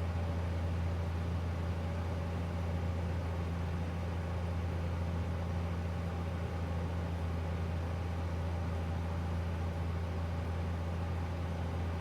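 The Cessna 172G's six-cylinder Continental O-300 engine and propeller drone steadily, throttled back with carb heat on for a descent.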